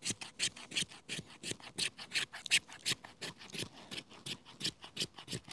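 Spine of a carbon-steel bushcraft knife (BeaverCraft Dune) scraping a fatwood stick in quick, even strokes, about four or five a second, raising fine resinous scrapings for tinder.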